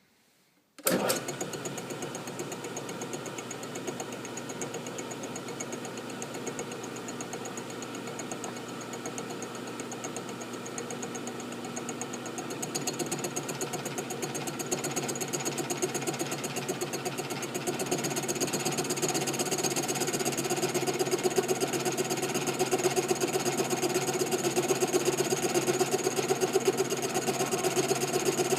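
Milling machine starting up about a second in and running steadily while cutting slots into a steel M1911 pistol slide. The cut grows louder and higher-pitched about halfway through, and louder again later on.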